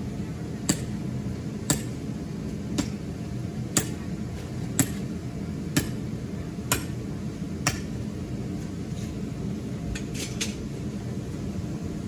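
Hammer striking a metal ground stake, sharp blows about once a second, then a quick cluster of three strikes about two seconds later. Under it runs the steady hum of the inflatable's electric blower.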